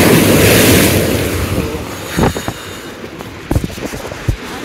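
A sea wave breaking and crashing against a rock seawall, its surf washing loudly and then dying away over the first couple of seconds. Then a few short sharp knocks.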